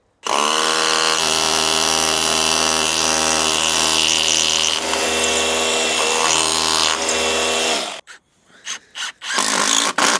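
Cordless rotary hammer drill drilling into a rendered block wall: one loud, steady run of about eight seconds that stops abruptly. Near the end come a few short bursts from a Milwaukee cordless impact driver driving a screw into the timber.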